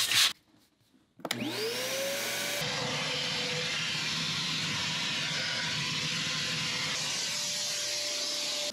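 Wet/dry shop vacuum starting up about a second in with a rising whine, then running steadily while its nozzle sucks soapy water out of a boat's bilge.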